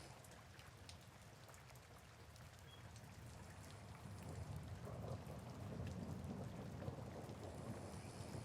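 Soft, steady rain pattering. About halfway through, a low rumbling snore swells in beneath it.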